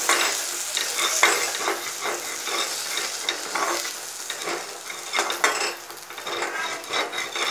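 A spatula stirring and scraping spice powders through sautéed onion and tomato in a pan, in repeated strokes about twice a second, over a light sizzle as the masala fries.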